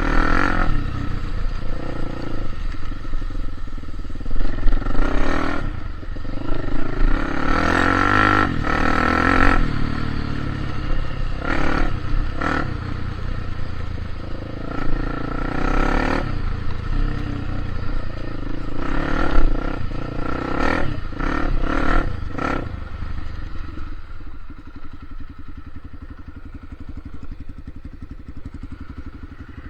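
Vehicle engine running and revving unevenly over rough ground, with repeated clattering knocks; about three quarters of the way through the knocks stop and the engine settles to a low steady run.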